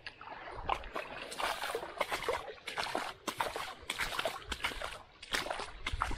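Irregular, repeated splashing and sloshing of water from a hooked gar thrashing at the surface.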